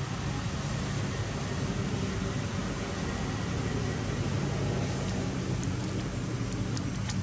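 Steady low engine rumble with a hum, with a few faint ticks near the end.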